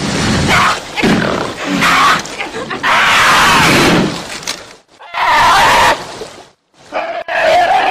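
A cougar and a brown bear snarling and growling at each other in a string of harsh bursts with short breaks. The longest burst comes about three seconds in.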